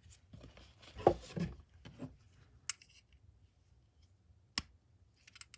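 Small metallic clicks and scrapes of a tool prying at the rust-seized internals of a Snap-on 1/4-inch ratchet head, a part that is stuck fast. The sounds come in a cluster about a second in, then as a few sharp single clicks further on.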